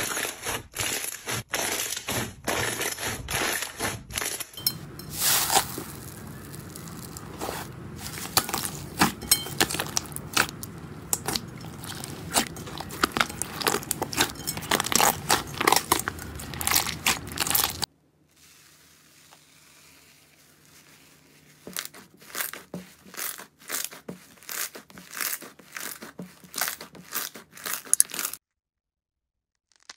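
Slime squeezed and pressed flat by hands, giving fast, irregular crackling pops and squishy clicks. The sound changes suddenly about four seconds in and again a little past halfway as a different slime is worked, first one with crinkly plastic wrap over it. The clicking is sparser and quieter in the last stretch and stops just before the end.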